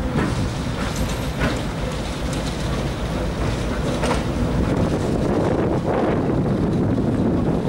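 A BR Class 08 diesel shunter approaching at slow speed, its English Electric six-cylinder diesel engine running with a steady low drone that grows a little louder in the second half. There are a few sharp clicks from its wheels on the track.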